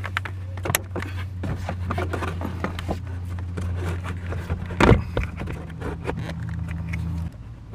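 Clicks, scrapes and knocks of hands refitting a car's heater blower motor under the dashboard and plugging in its connector, with one louder knock about five seconds in. A steady low hum runs underneath and stops shortly before the end.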